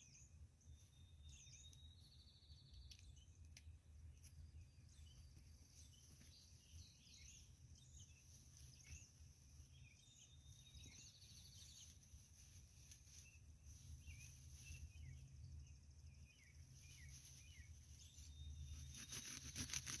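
Faint birdsong: one bird repeats a short song, a held note running into a buzzy trill, three times, among scattered chirps, over a steady low background rumble. Near the end comes a louder rapid crackle of plant stems handled close to the microphone.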